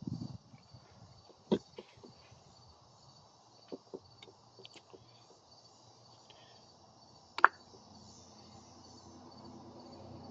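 Light clicks and taps from small parts being handled at the bench, the sharpest about seven and a half seconds in, over a faint steady high chirping.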